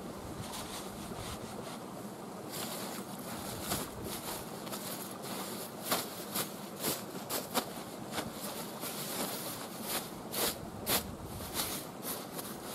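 Nylon bivvy bag fabric rustling and crinkling in irregular bursts as it is pulled from its stuff sack and spread out over a tarp groundsheet. The rustles come thicker from about two and a half seconds in, over a steady background hiss.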